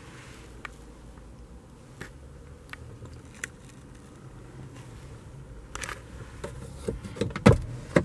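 A Volvo XC60's glove box being handled and opened: small clicks and scrapes, then a loud knock about seven and a half seconds in as the latch releases and the lid drops open. A low steady hum runs underneath.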